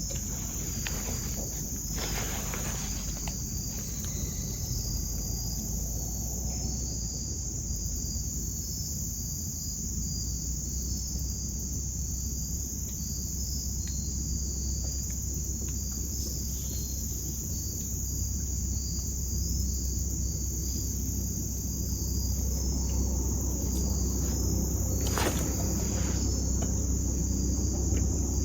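Crickets and other insects chirping steadily in the woods: a continuous high-pitched trill with evenly repeated chirps, over a low steady rumble. There are a few faint clicks or rustles, near the start and again near the end.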